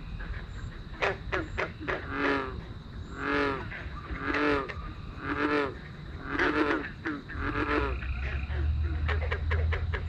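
Frogs calling: one frog gives a slow series of about five drawn-out croaks, roughly one a second, with quick clicking calls from other frogs before and after the series.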